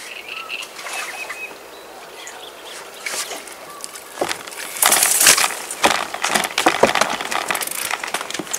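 A large carp thrashing in a landing net: a run of wet slaps, rustles and knocks, loudest in a burst about five seconds in.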